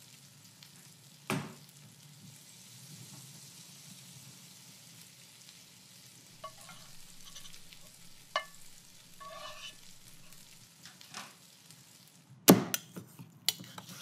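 Faint steady sizzling hiss, with a few soft knocks and short clinks. Near the end comes a quick run of sharp knife strikes on a wooden cutting board.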